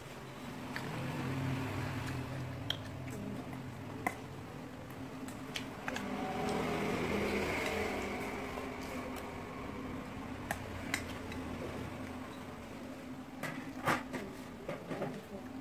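Eating sounds from a person biting and chewing fried chicken wings by hand, with sharp clicks and clinks of dishes scattered through and a cluster of them near the end. A low background noise swells up twice.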